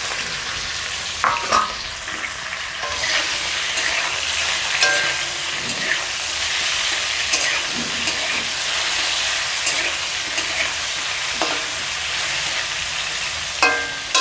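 Pieces of koi fish sizzling steadily in hot mustard oil in a metal kadai, being lightly fried. A metal spatula scrapes and clicks against the pan every second or few as the pieces are turned.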